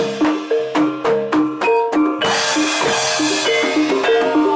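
Gamelan accompaniment for barongan and jaranan dancing: mallet-struck keyed instruments play a short repeating melody over sharp, regular drum strokes.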